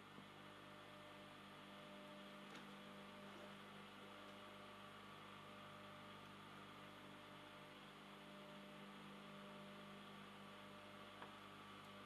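Near silence: a faint steady hum over light hiss, with two tiny clicks, one about two and a half seconds in and one near the end.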